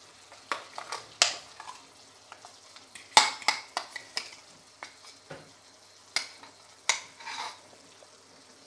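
Thick ground masala paste being scraped out of a jar into a pan of cooked beef curry: irregular sharp clicks and taps of a spoon against the jar and pan, with a short scrape about seven seconds in.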